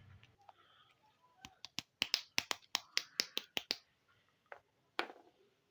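Small hard plastic toy pieces clicking and tapping as they are handled: a quick run of about a dozen sharp clicks over two seconds, then two more, the last one louder.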